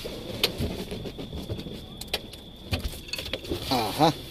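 Scattered light knocks and clicks from the filming phone being handled and moved around the boat, over a faint steady high-pitched tone. A brief voice is heard near the end.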